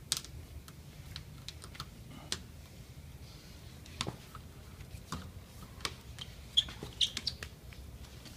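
Irregular light clicks and taps, with a few brief high squeaks about two thirds of the way through, over a low steady hum.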